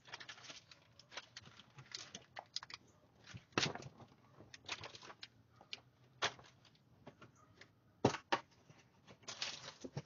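Irregular rustling, scraping and knocking of cardboard boxes and packages being handled close to a doorbell camera's microphone, with a few sharper knocks about a third of the way in and again near the end.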